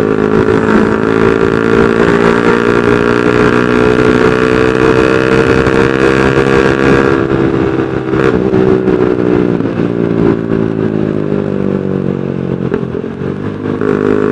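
Honda New CB150R's single-cylinder engine through a 3Tech Spartan GP aftermarket racing exhaust, running loudly at steady revs. Its note dips briefly about halfway through and again near the end, then rises.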